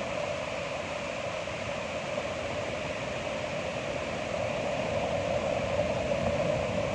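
Ocean waves washing in a steady rush of surf that swells a little louder near the end.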